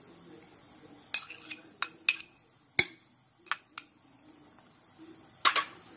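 A steel spoon clinking against bowls as chopped onion is scraped out of a small bowl into a glass mixing bowl: about eight sharp, irregularly spaced clinks.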